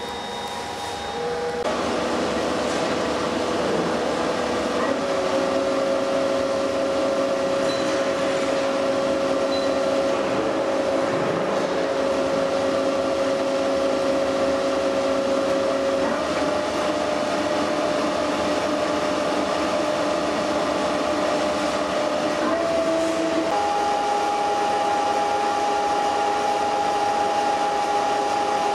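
Okuma LC50 CNC lathe running, a steady mechanical whine over a hum that grows louder about a second and a half in and then steps up in pitch several times.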